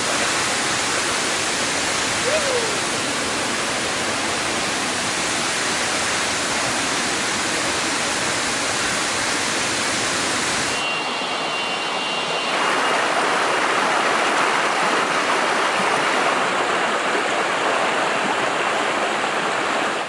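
Tall waterfall close by, a steady rush of falling water. The rush changes tone abruptly about eleven seconds in.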